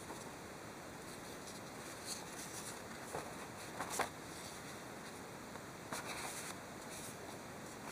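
A sheet of printed paper rustling and crackling as it is handled, in a few short bursts: around three to four seconds in, the sharpest at four seconds, and again around six seconds. Faint steady hiss underneath.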